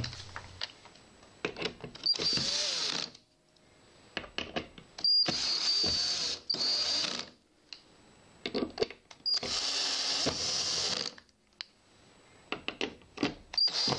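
Bosch PSR 9.6 VE cordless drill-driver tightening the enclosure's cover bolts in five short runs of a second or so each, each run opening with a brief whine. Small clicks come between the runs as the bit is set into the next bolt.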